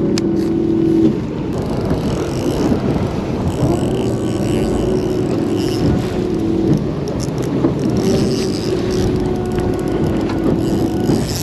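Wind and choppy water around a small fishing boat, with a motor hum that rises and then holds steady for about three seconds, three times.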